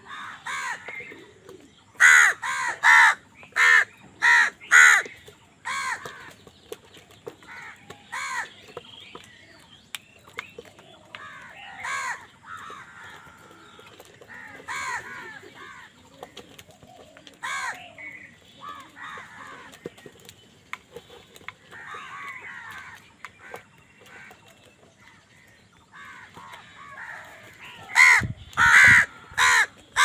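A flock of house crows cawing over food: a quick run of about five loud, harsh caws about two seconds in, scattered calls through the middle, and another loud run of caws near the end.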